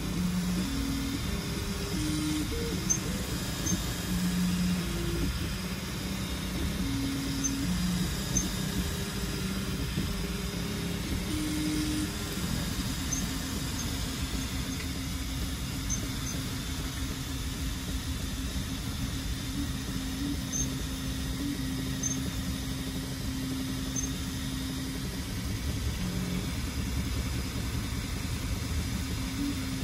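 3D printer printing: its stepper motors hum in low tones that jump from one pitch to another every second or so as the print head changes speed and direction, over a steady fan hiss. The printer carries an E3D Hemera direct-drive extruder with a 0.8 mm CHT nozzle, laying down PLA+ in thick 0.5 mm layers.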